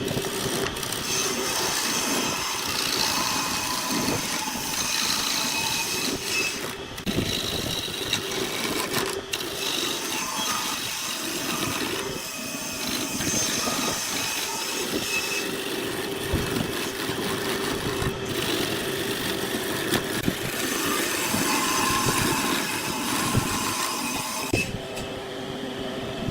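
Wood lathe spinning a milk flower wood blank while a turning tool cuts it: a continuous rasping cut over a steady hum from the lathe, the cutting sound changing as the tool moves.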